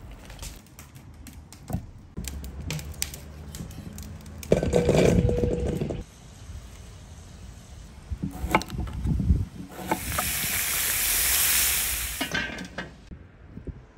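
Cooking sounds: scattered clicks and knocks, a louder rushing noise for about a second and a half near the middle, and food sizzling in hot fat as a bright hiss for about two seconds near the end.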